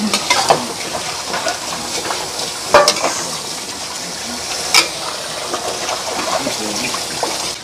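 Metal spatula stirring and scraping through fried fish and vegetables in a steel wok, with the food sizzling steadily. A few sharp clinks of the spatula against the wok stand out, loudest about three seconds in and again near five seconds.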